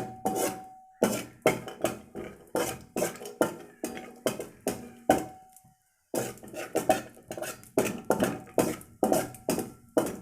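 Spoon stirring cashew nuts frying in ghee in a kadai, knocking and scraping against the pan in a steady run of strokes, about two or three a second, with a short silent break about six seconds in.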